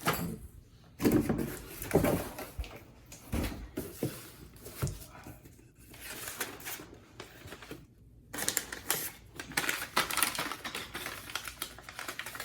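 Plastic packaging crinkling and rustling with irregular clicks and knocks as hive parts are unwrapped and handled; the crackling becomes dense and continuous about two-thirds of the way in.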